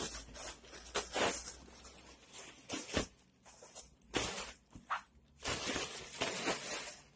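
Plastic shopping bags rustling and crinkling as clothes are handled and packed into them, in a string of short irregular bursts with brief pauses between.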